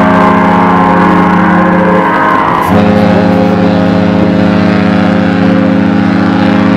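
A large cruise ship's horn sounding loud, long, steady blasts as a chord of low tones, breaking off briefly about two seconds in and starting again abruptly.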